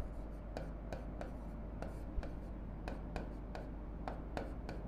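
A stylus tapping and scratching on an interactive board's screen as a person writes a word. The strokes come as a faint, uneven run of light ticks, about three a second.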